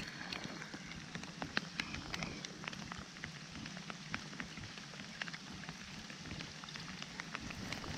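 Steady rain falling, with many irregular sharp drop ticks over a soft hiss.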